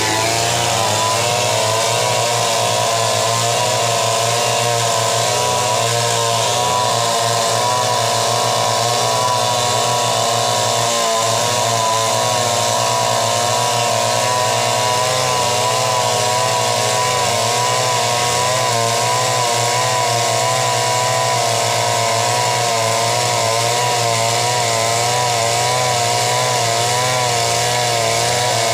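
Chainsaw engine running steadily for the whole stretch, its pitch wavering slightly up and down.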